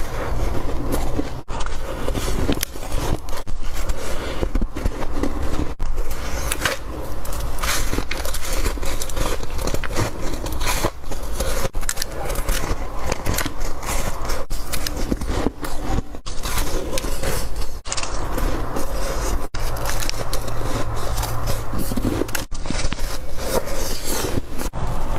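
Close-up crunching of soft, cotton-textured white ice being bitten and chewed: a dense, steady run of crackly crunches with a few brief breaks.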